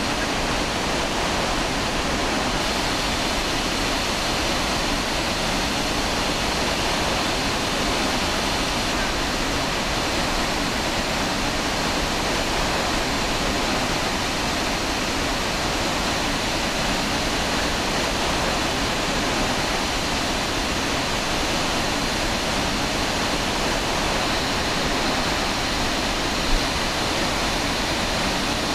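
Iguazu Falls: steady rushing roar of the great waterfall pouring close below, with one short knock near the end.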